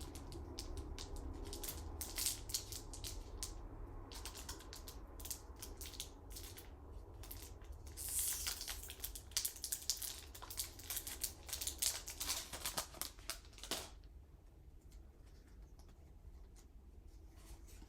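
Foil Pokémon booster pack wrappers being crinkled and torn open: a run of sharp crackles and rustles, with a longer tearing rip about eight seconds in. The handling stops about fourteen seconds in.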